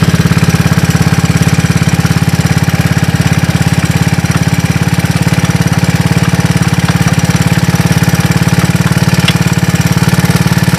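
Honda TRX200 ATV's single-cylinder four-stroke engine idling steadily with an even, rapid beat. The fuel tap is off, so it is running down the petrol left in the carburettor.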